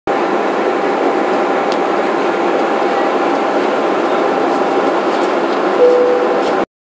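Steady cabin noise of a jet airliner in flight: an even rush of air and engine noise with faint steady hums running through it. It cuts off suddenly just before the end.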